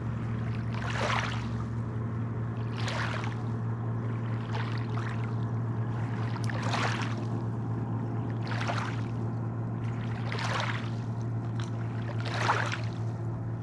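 Small waves washing onto a stony riverbank, each wash swelling and fading about every two seconds, over a steady low hum.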